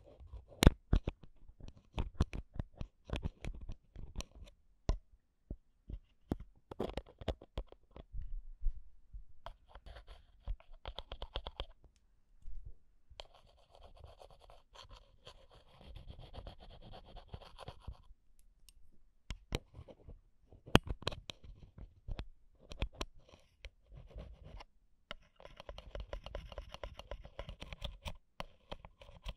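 Metal ear pick tapping and scratching directly on the X/Y microphone capsules of a Zoom H1 handheld recorder, close and crisp. Many sharp clicks through the first several seconds, then longer stretches of scraping, with more clicks in between.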